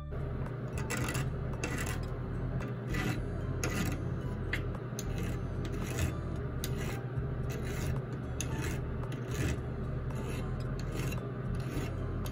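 Jeweler's hand file rasping across the sawn edge of a 24-gauge copper sheet back plate in repeated strokes, about one or two a second, smoothing the edge after sawing.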